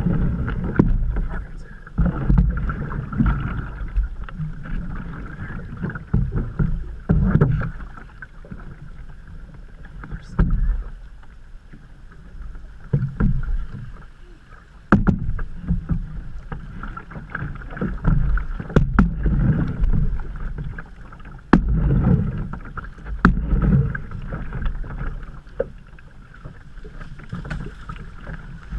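Canoe being paddled down a fast, flood-swollen creek: water rushing and sloshing against the hull in surges that come every second or two with the paddle strokes. A few sharp knocks stand out.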